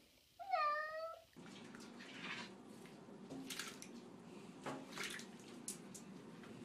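A wet cat in a bathtub gives one meow. Then water sloshes and splashes in a bubble bath as ferrets move about in it, with several sharper splashes.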